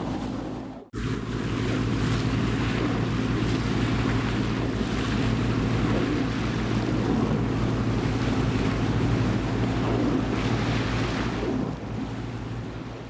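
A boat under way: a steady engine hum with an even low pulse, under wind buffeting the microphone and water rushing along the hull. The sound cuts out for a moment about a second in, and fades away near the end.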